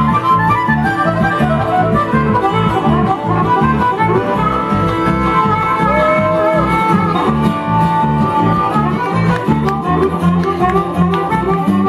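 Bluegrass band playing an instrumental passage: fiddle melody with sliding notes over guitar and a steady low bass beat.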